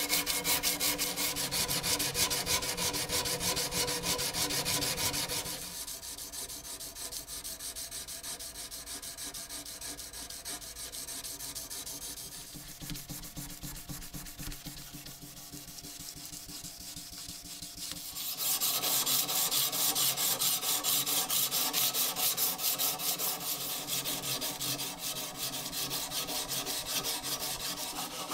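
Hand sanding of the steel blade of an antique drawknife, an abrasive stick scraped rapidly back and forth to take off rust. The scraping is loud at first, quieter through the middle while a grey block is worked along the blade, then loud again.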